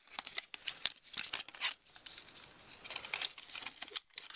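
Clear plastic packaging tray crackling and clicking as earbuds are pried out of it by hand: a fast, irregular run of small snaps and crinkles.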